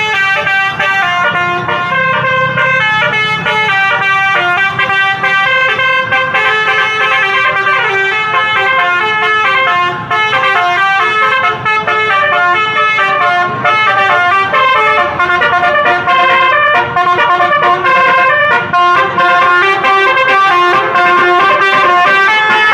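Basuri multi-tone 'telolet' bus horn playing a continuous melody of short, stepped notes, with a low rumble underneath for the first few seconds.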